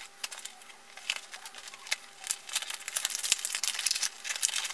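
Paper and cardboard gift-box packaging crinkling and tearing as it is worked open by hand: a run of quick crackles and clicks that grows denser near the end.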